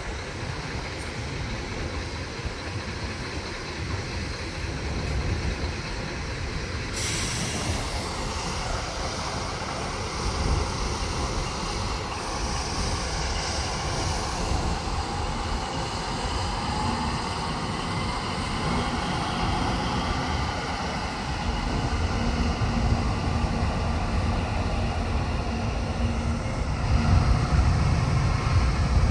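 Freight train of covered wagons rolling past with its diesel locomotive, a steady rumble of wheels on rail. A short hiss about seven seconds in, and the rumble grows louder near the end.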